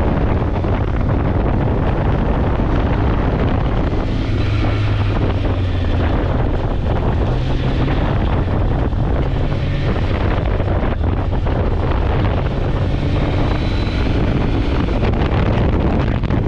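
Wind buffeting on a GoPro's microphone while driving: a loud, steady rush of wind noise over the drone of the moving vehicle.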